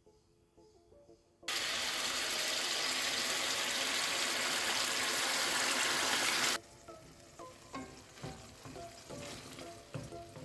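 Loud, steady sizzling of food frying. It starts suddenly about a second and a half in and cuts off abruptly about five seconds later, over soft background music.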